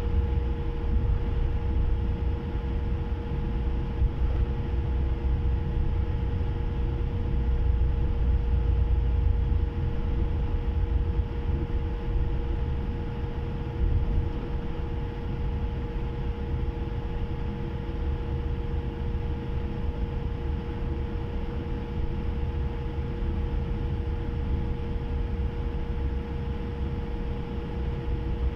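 Cabin noise inside a Japan Airlines Boeing 787-8 taxiing after landing: its GEnx-1B engines at idle and the cabin air systems give a steady low rumble with a constant hum over it. The rumble eases about ten seconds in.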